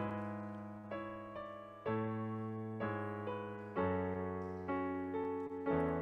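Slow, gentle piano music: chords struck about once a second, each left to ring and fade before the next.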